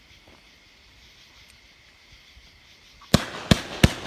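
500-gram, 25-shot Fisherman Fireworks 'Camel Toe' cake starting to fire: after about three seconds of faint background hiss, three sharp shots about a third of a second apart near the end.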